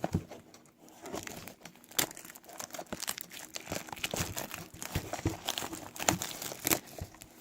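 Trading-card packaging being torn open and crinkled by hand: an irregular run of crackles and rustles.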